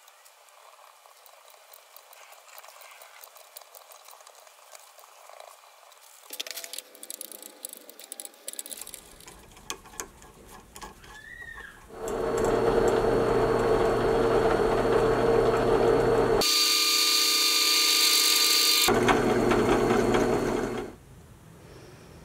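Hand tap in a T-handle wrench being turned into the end of a metal rod in a vise, with light clicks and scrapes. About halfway in, a power tool starts and runs steadily for about nine seconds, changing pitch for a couple of seconds partway through, then stops.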